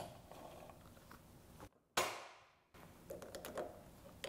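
Faint light metal clicks and taps from a chainsaw chain and file being handled on the saw clamped in a vise, with one sharper clack about two seconds in. Two short dead silences break it up.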